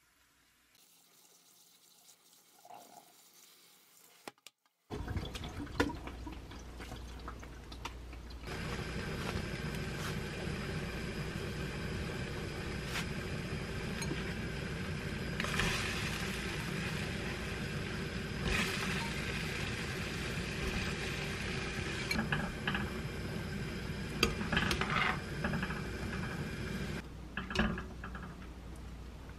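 A pot of water boiling hard on a gas burner, a steady bubbling with a few louder splashes and clatters as mushrooms are blanched in it. It comes in after a few seconds of near quiet.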